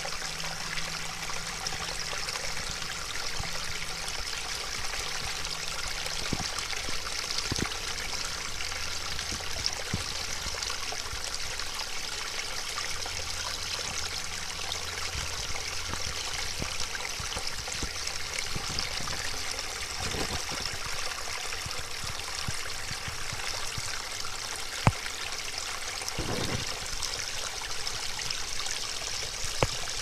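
A small, shallow stream trickling and babbling steadily as it pours over bedrock, with a single sharp click late on.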